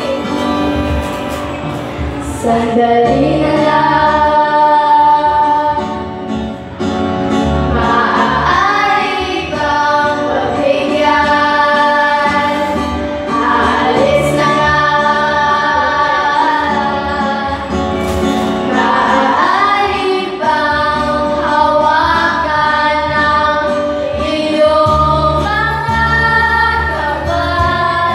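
Several young women singing a song together into handheld microphones over a karaoke backing track, their voices amplified. The singing runs in phrases throughout.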